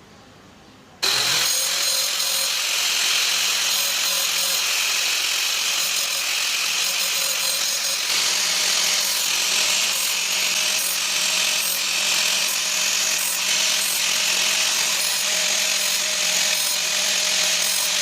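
Circular saw running under load, cutting steadily. It starts abruptly about a second in and holds an even pitch and level throughout.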